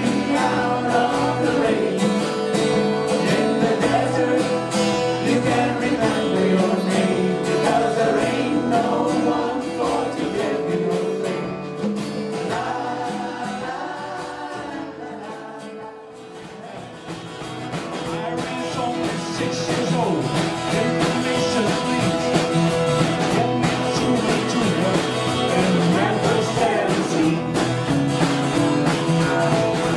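Live band playing a song with two women singing, over acoustic guitar, keyboard, double bass and drums. The music drops to a softer passage about halfway through, then builds back to full level.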